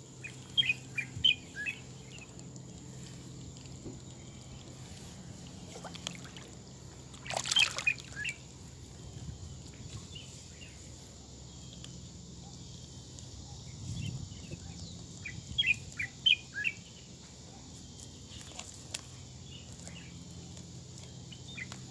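A bird chirping in two quick runs of short high notes, near the start and again about two-thirds of the way through, with a single brief rustle or knock about seven seconds in over a faint steady low hum.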